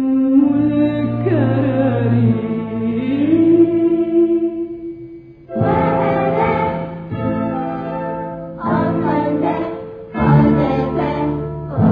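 Music with singing. A long held sung note comes first, then about five and a half seconds in a fuller, choir-like passage starts in short phrases.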